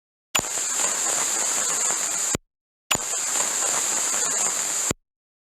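Radio-frequency interference static sound effect: two bursts of crackling hiss with a shrill high whine, each about two seconds long, starting and cutting off abruptly.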